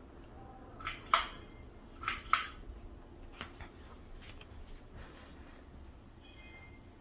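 Two quick pairs of sharp clicks about a second apart, followed by a few fainter clicks, over a low steady hum.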